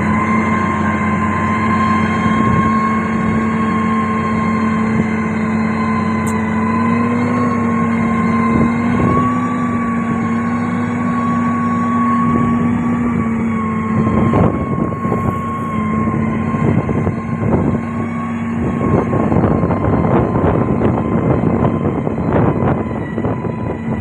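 Komatsu motor grader running steadily with a constant hum as its blade pushes broken stone, with crunching and rattling of rock that picks up about halfway through and again near the end.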